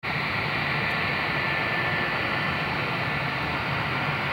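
Airbus A320's twin IAE V2500 turbofan engines running steadily as the airliner sits on the runway at the start of its takeoff: a high steady whine over a low rumble.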